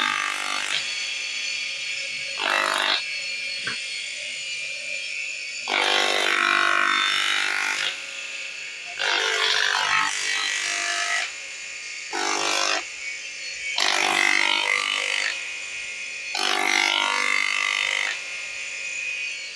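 Bench motor with a sanding drum running steadily, growing into a louder grinding each time a slipper sole is pressed against the spinning drum to finish its edge. This happens about seven times, each contact lasting one to two seconds.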